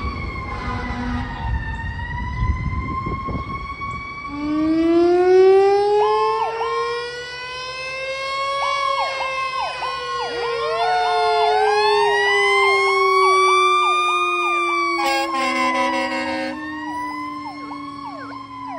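Fire engine sirens: over road rumble, a deep wail starts a few seconds in, rises for about four seconds and then slowly falls, while a second siren sweeps rapidly up and down over it. A short horn blast sounds late on.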